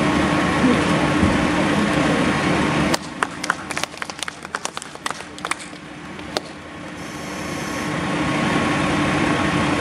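A Hino coach's diesel engine runs close by as the bus manoeuvres slowly, a steady noise. About three seconds in the noise drops away suddenly, leaving a few seconds of scattered sharp clicks, then it swells back up.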